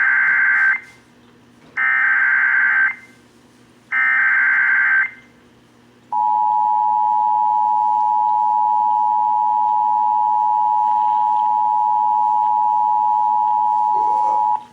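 Emergency Alert System signal over AM radio: three SAME header data bursts, each about a second long with about a second between them, the first already under way. About six seconds in, the EAS two-tone attention signal begins, sounds steadily for about eight and a half seconds and cuts off sharply, marking the start of the alert.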